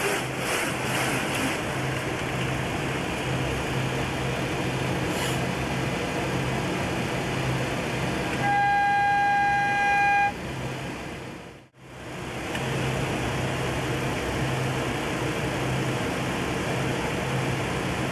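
Boeing 727 cockpit noise in flight: a steady rush of airflow and engine sound with a low pulsing hum. About eight and a half seconds in, a loud steady electronic alert tone sounds for about two seconds. Just before twelve seconds the sound cuts out almost to silence for a moment.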